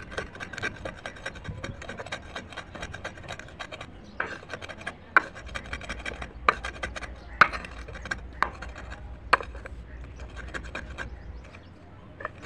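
A rough stone block pressed and ground over crushed slate pencil pieces on a stone slab: a dense crackling crunch, then a run of sharp single cracks about once a second as fragments snap under the stone, fading to a few faint crackles near the end.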